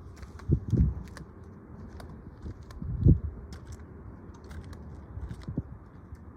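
A few dull thumps, the loudest about three seconds in, with scattered light clicks and ticks over a low hiss.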